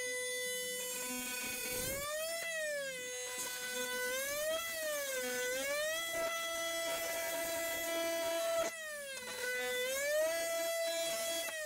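Milwaukee cordless power tool running with a steady buzzing whine as its blade cuts an opening through a wall panel. The pitch rises and falls several times, with a brief dip about nine seconds in.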